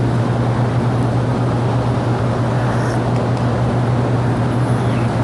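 Steady low hum with an even rushing noise behind it, with no break or change, from the room or its sound system.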